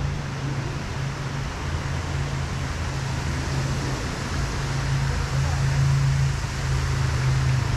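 A steady low mechanical hum with a rushing noise over it, growing a little louder in the second half.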